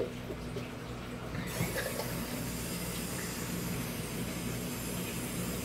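A short knock at the very start, then a kitchen faucet running into the sink from about a second and a half in, filling a plastic measuring cup with water.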